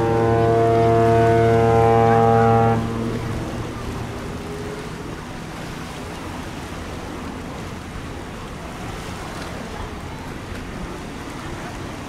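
Bulk carrier's horn sounding one long, steady, deep blast that cuts off about three seconds in, a faint tail lingering for another second or so. After it, only wind and sea noise.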